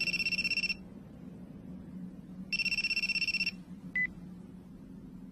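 Mobile phone ringing twice, each ring about a second long with a fast trill, then a single short beep as the call is answered.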